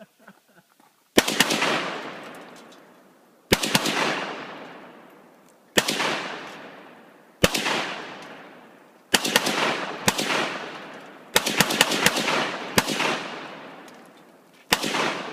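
Rifle shots, a dozen or so, fired singly and in quick runs of two to four. Each crack is followed by a long echo that fades over a second or two.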